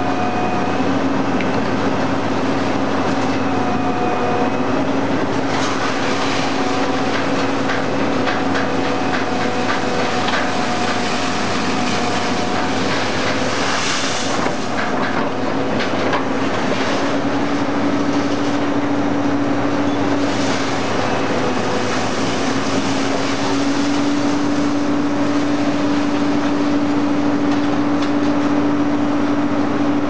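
Y81-1600 hydraulic scrap-metal baler running: its hydraulic power pack hums steadily with a clear tone that steps slightly higher twice in the second half. Scrap metal clatters and rattles over the hum, most densely in the middle and loudest about halfway through.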